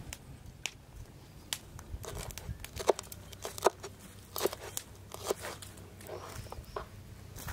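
Kitchen knife chopping crisp green vegetables on a wooden cutting board: irregular crunching knocks of the blade hitting the board, a few faint ones at first, then about one every half to one second.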